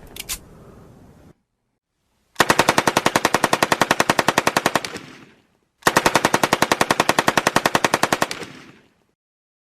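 Machine gun firing: a few separate shots near the start, then two long bursts of rapid, evenly spaced fire, about three seconds each, with a brief pause between them.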